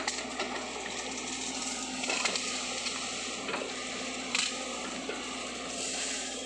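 Sany SY55C mini excavator running steadily while it digs, with continuous crackling and a few sharp crunches as the bucket works the wet peat soil.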